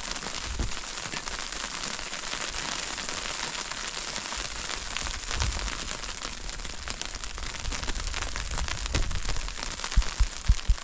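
Steady crackling hiss made of many small ticks, with a few low thumps near the end.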